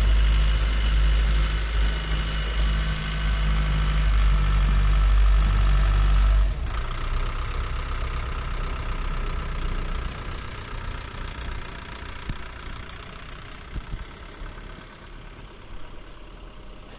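Tracked all-terrain vehicle's 2.4-litre turbo diesel engine running, loud for the first six seconds or so, then dropping suddenly and fading steadily as it goes on.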